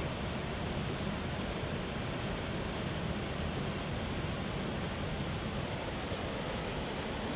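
Steady, even rush of white water on a river in flood.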